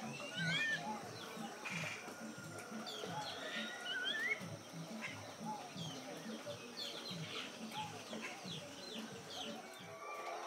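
Farmyard ambience: hens clucking, with small birds chirping in short rising calls.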